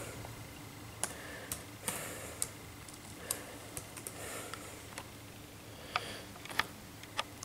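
Faint, irregular small clicks, about a dozen scattered through the stretch, over a low steady hum.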